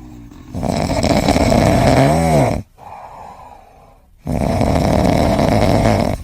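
Loud snoring: two long snores of about two seconds each, the first ending in a brief whistling tone that rises and falls.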